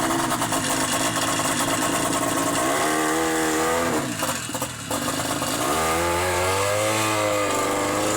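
Buran snowmobile's two-stroke engine running under way, its pitch rising and falling a few times as the throttle changes.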